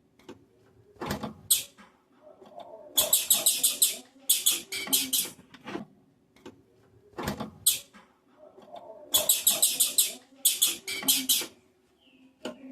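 Female blue-black grassquit (tiziu) calling: several rapid runs of high, sharp chips, about eight to a second, with a few single chips and knocks between them.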